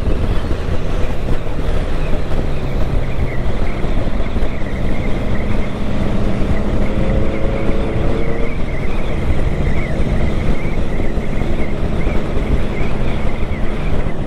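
Motorcycle being ridden at road speed: the engine running steadily under heavy wind rush on the bike-mounted microphone.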